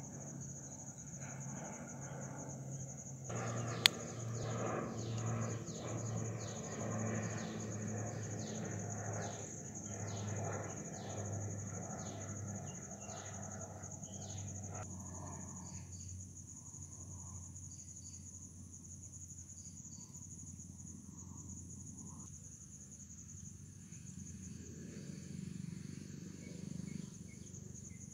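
Insects trilling steadily, one high continuous trill, with a second, pulsed high trill joining about halfway. A low rhythmic pulsing runs through the first half, and there is a single sharp click about four seconds in.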